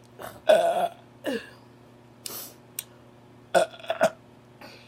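A person burping several times in short bursts, the loudest burp about half a second in, followed by a shorter burp that falls in pitch and a few smaller burps and breathy noises.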